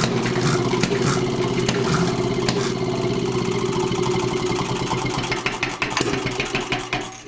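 An engine running steadily, fading out near the end.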